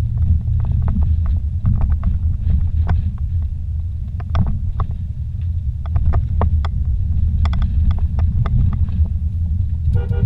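A vehicle driving slowly over a rough dirt road, heard from inside the cabin: a steady low rumble of engine and tyres, with frequent short knocks and rattles scattered through it.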